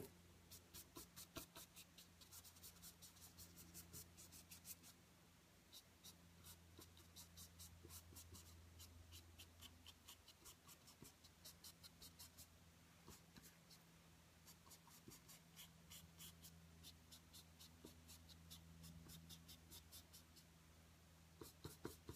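Faint scratching of an oil-paint bristle brush worked back and forth over the painting surface, in runs of several quick strokes a second with short pauses, over a faint steady low hum.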